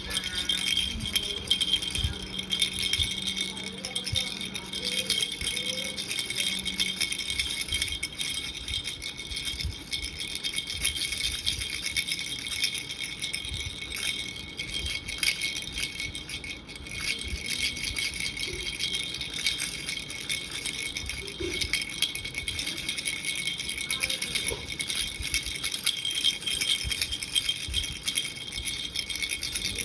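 Kilukkam baby rattle shaken continuously, a bright, steady jingling with ringing high tones.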